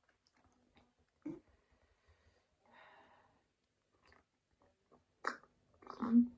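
Close-up eating sounds: a person chewing, with soft mouth noises scattered through and two louder wet mouth sounds near the end.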